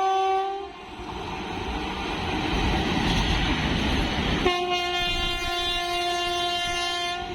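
Indian Railways express train's locomotive horn blowing, cutting off under a second in. The rumble of the train running through the station grows, and the horn sounds again for about three seconds from around the middle.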